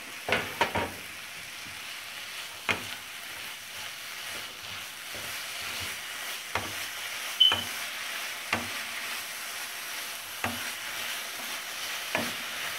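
Grated carrots and sugar sizzling in ghee in a nonstick frying pan while a plastic slotted spatula stirs them, knocking and scraping against the pan every second or two. A short high squeak sounds about seven seconds in.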